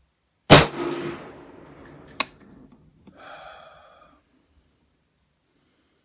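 A single rifle shot from a Smith & Wesson M&P10 .308 semi-automatic rifle, with a long echoing decay. A sharp metallic clink follows about a second and a half later.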